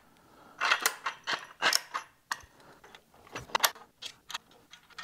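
Irregular clicks, knocks and light rattles of a 3D-printed robot arm being handled and fitted against a metal mounting plate, with loose small metal parts on the plate clinking.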